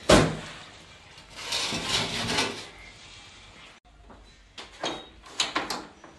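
Metal parts of a BMW 6HP19 automatic transmission being handled during teardown. There is a sharp clunk at the start, then a clattering scrape about two seconds in. Near the end come a few short metallic clinks of parts against a steel workbench.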